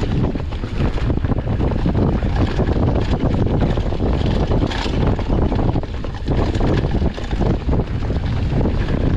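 Mountain bike descending a rough downhill trail: wind buffets the microphone over the tyres on dirt, with a constant clatter of rapid knocks and rattles from the bike over the bumps.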